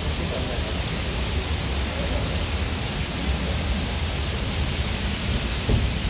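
Steady hiss of rain, with a low rumble underneath.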